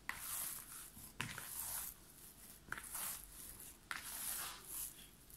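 Hands pressing and folding risen yeast dough in a plastic bowl to knock the air out of it: soft sticky squishing and tearing sounds, a handful of them about a second apart.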